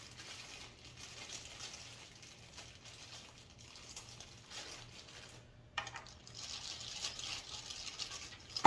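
Plastic packaging crinkling and rustling as parts are unwrapped, busier in the second half, with a sharp click about six seconds in.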